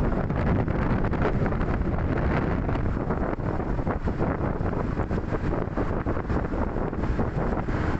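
Wind buffeting the microphone of a camera moving along a road, a steady rumble with frequent short gusts, mixed with traffic noise.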